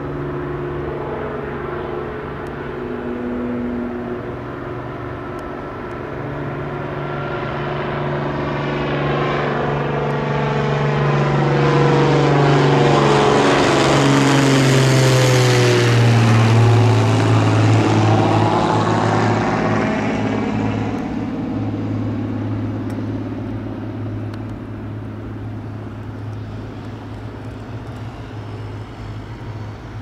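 Piper PA-46-350P Malibu Mirage's single turbocharged six-cylinder piston engine and propeller at takeoff power, growing louder as the plane comes down the runway and lifts off. The drone peaks as the plane passes, with a swirling sound and a clear drop in pitch about halfway through, then fades as it climbs away.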